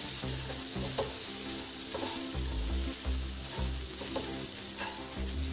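Spatula stirring and scraping oats and vegetables around a hot non-stick pan, with a light sizzle and a few small taps, over background music.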